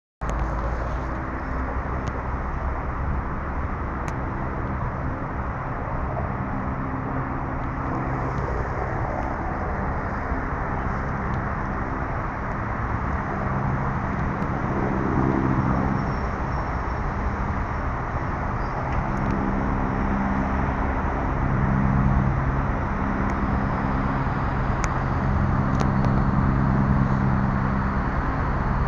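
Helicopter running: a steady roar with low engine tones that grows slowly louder toward the end.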